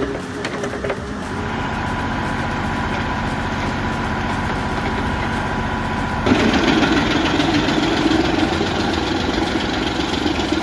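An engine running steadily with an even pulsing, growing louder and heavier about six seconds in as if taking on load.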